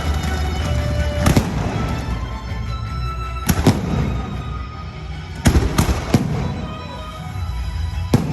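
Fireworks going off in a string of sharp bangs at irregular intervals, one to two seconds apart and sometimes two or three in quick succession, over a steady low rumble.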